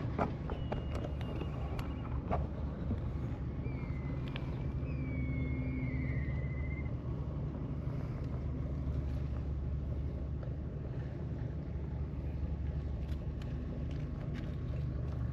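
An engine running steadily with a low, even hum. A faint wavering whistle comes through about a third of the way in, and a couple of clicks sound near the start.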